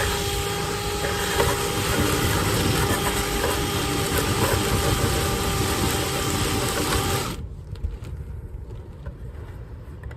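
A motor-driven machine running steadily with a whine over a rushing noise, cutting off suddenly about seven seconds in.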